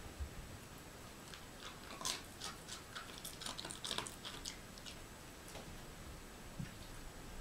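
Miniature schnauzer chewing a treat: a run of faint, quick crunching clicks from about two to four and a half seconds in.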